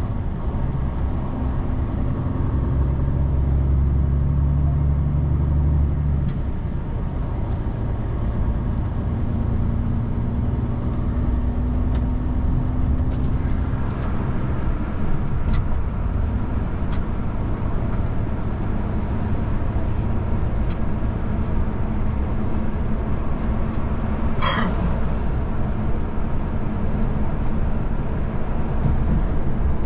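A road vehicle driving: a steady low engine drone over road noise. The engine note drops about six seconds in, and there is one sharp click about 24 seconds in.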